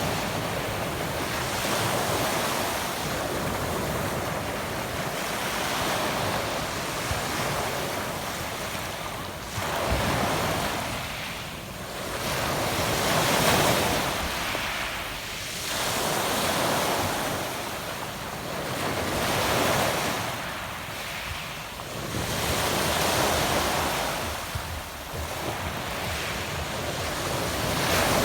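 Adriatic Sea waves washing onto a pebble beach, the surf swelling and fading every few seconds.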